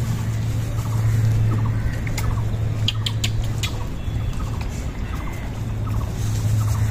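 Short animal calls in small pulsed clusters, about two a second, over a steady low hum, with a few sharp clicks a few seconds in.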